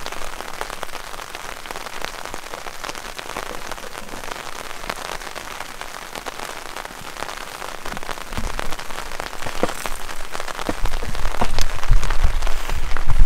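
Rain pattering on tent fabric: a steady hiss of many small drop ticks. Low thuds and rumble come in about eight seconds in and grow louder near the end.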